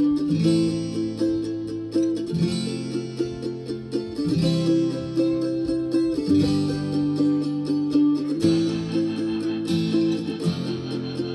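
Guitar-led music with a strong bass line playing through a Tronsmart T7 Bluetooth speaker, the chords changing about every two seconds.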